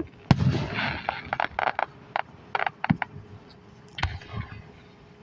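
Aerial fireworks: a loud burst just after the start, followed by a scatter of sharp crackling pops over the next couple of seconds, and another boom about four seconds in.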